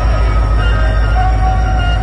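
Background music with long held melody notes over the steady low rumble of a diesel locomotive idling.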